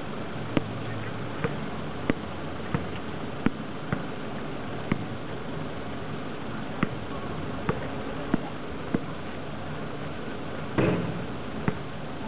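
Sharp clicks or knocks at uneven gaps over a steady hiss, with one louder thump about eleven seconds in.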